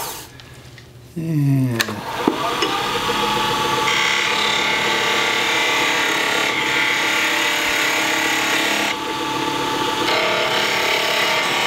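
Wood lathe motor spinning down to a near stop, then starting again about a second in and winding back up to a steady run. A turning gouge cuts the spinning cocobolo bottle stopper, a scraping cutting noise over the motor from about four to nine seconds in and again near the end.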